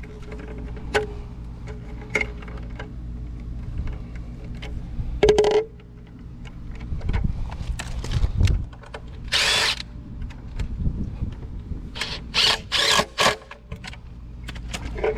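Power drill-driver running in several short bursts a few seconds apart, over a steady low hum.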